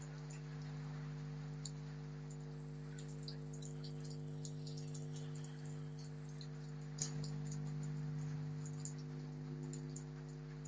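Rain falling, with many scattered drips ticking on a hard surface and one sharper tick about seven seconds in, over a steady low hum.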